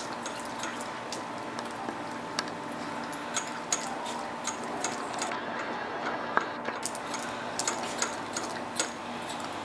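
A husky licking at a lick-activated faucet waterer: irregular wet clicks and laps a few times a second as its tongue works the valve, over a faint steady trickle of water.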